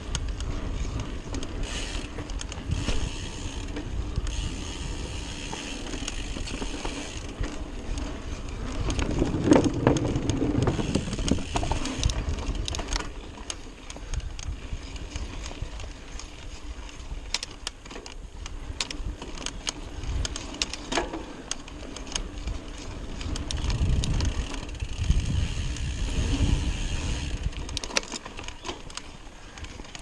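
Trek Fuel EX full-suspension mountain bike ridden along a dirt singletrack, heard from a camera on the rider. Its tyres make a steady low rumble on the dirt, with many short rattles and clicks from the bike. The sound grows louder for a few seconds about a third of the way in and again later on.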